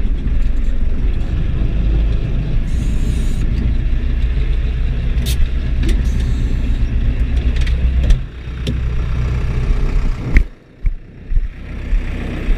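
Deutz DX 4.70 tractor's air-cooled diesel engine running steadily, heard from inside the cab. A little after eight seconds the engine note drops, and near the end a few loud knocks break in before the engine is heard more quietly.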